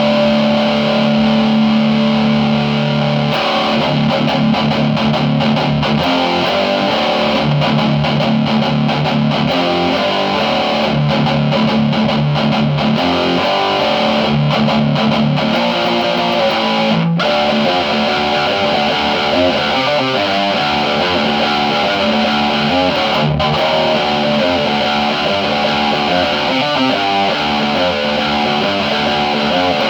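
Electric guitar played through a Friedman Sir-Compre compressor pedal with its overdrive, giving a compressed, lightly distorted tone. A chord rings for about the first three seconds, then the guitar plays a riff of single notes and chords.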